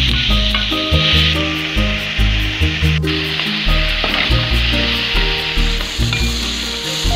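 Chopped onions, tomatoes and dal sizzling in oil in a nonstick pan while a spatula stirs and scrapes them, over instrumental background music.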